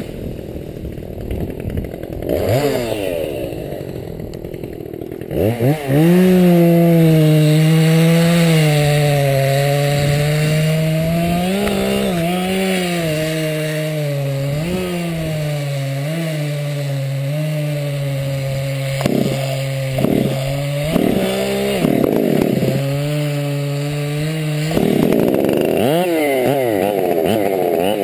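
Ported (walkerized) Husqvarna 390XP two-stroke chainsaw being pull-started, catching a little after five seconds in and then running steadily. It is blipped a few times and revved up near the end.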